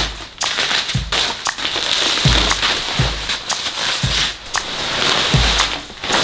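Bubble wrap and plastic wrapping crinkling and rustling as it is cut and pulled off a packed paramotor frame. Background music with a low thumping beat about once a second plays under it.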